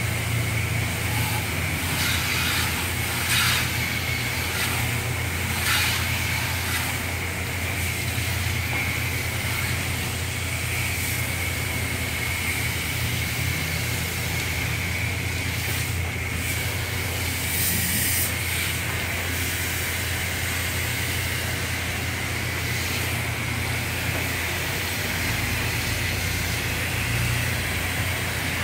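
Self-serve car wash high-pressure wand spraying water onto a car: a steady hiss of spray over a constant low hum, with a few brief louder flares of hiss.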